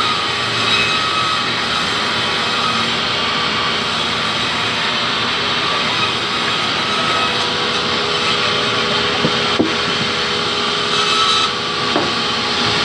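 Large vertical band saw cutting lengthwise through a hardwood log fed along its table: a steady, dense cutting noise, with a couple of sharp knocks in the second half.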